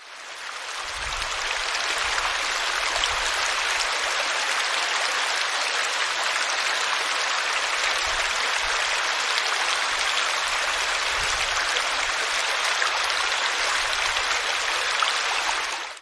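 Small stream spilling over a low rock step into a pool: a steady rush of splashing water. It fades in over the first second or two and stops abruptly at the end.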